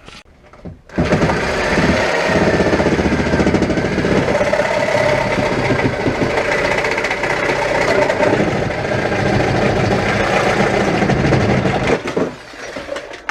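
Reciprocating saw cutting through the sheet metal of a car body shell, its blade chattering rapidly in the metal. It starts abruptly about a second in and stops shortly before the end.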